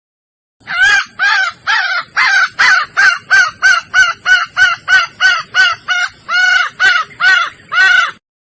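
Red junglefowl hen of the Sumatran race giving a quick series of about twenty short pitched calls, two to three a second, starting about half a second in and stopping suddenly near the end. It is the call of a hen in breeding condition calling to males.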